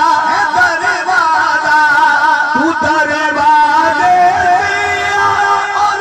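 A man's voice singing long, drawn-out ornamented notes with a wavering vibrato in a devotional Urdu manqabat in praise of Ali, amplified through a microphone. The melody steps to a new held note about four seconds in.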